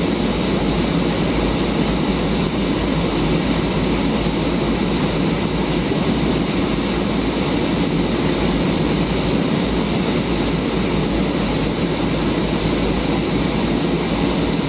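Jet aircraft engine running steadily, a constant rushing noise with a thin high whine above it.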